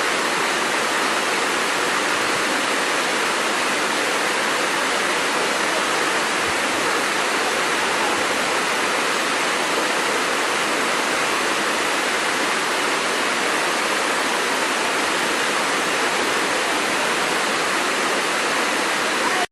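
Waterfall rushing: a loud, steady roar of falling water that does not change, cutting off suddenly at the end.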